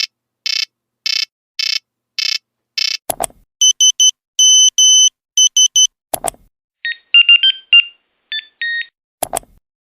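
A run of old monophonic mobile-phone ringtones in the Nokia style, each cut short and split from the next by a sharp click. First come six evenly spaced buzzy beeps. Then a pattern of high pure beeps, short ones around a longer one. Last is a short beeped tune.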